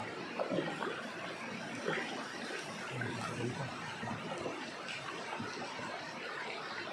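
Fast river water rushing and splashing along the side of a paddled wooden banca, with the boatman's paddle strokes dipping into the current.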